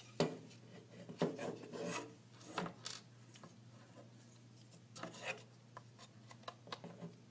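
Laser-cut plywood parts of a Printrbot LC 3D-printer kit being handled and fitted together by hand: wood rubbing and scraping against wood, with a few sharp knocks, the loudest just after the start and about a second in.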